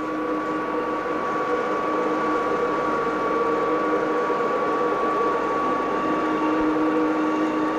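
Chain-driven pallet elevator running, its electric motor and chains lifting a loaded pallet: a steady mechanical hum with several held tones.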